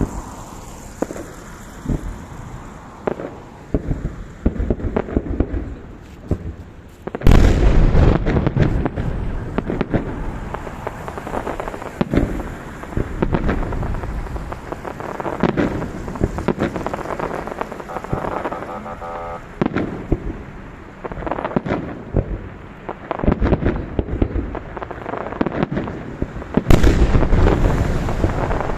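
Fireworks salute: a steady run of booms and crackles from bursting shells, with two louder, denser volleys, one about seven seconds in and another near the end.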